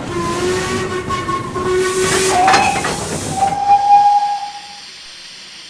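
Steam locomotive whistle blowing over a loud hiss of escaping steam. The whistle's pitch drops partway through, then it stops, leaving a fainter steady hiss.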